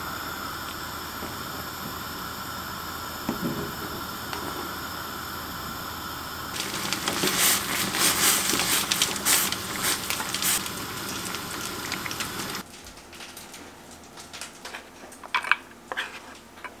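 A pot of soybean stew simmering on a gas hob with a steady bubbling hiss; about six seconds in it gives way to a louder crackle of water at a rolling boil in a stainless saucepan. After about twelve seconds the boiling stops, and a few light clinks and taps of a spoon against a steel bowl follow.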